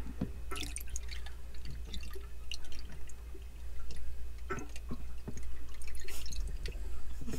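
Coolant poured through a funnel into the filler neck of a Yanmar marine diesel's heat exchanger, with irregular trickling and dripping. The heat exchanger had run dry and is being topped up.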